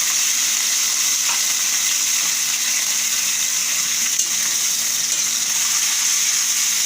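Chicken pieces frying in hot oil with sautéed ginger, garlic and onion, giving a steady sizzle.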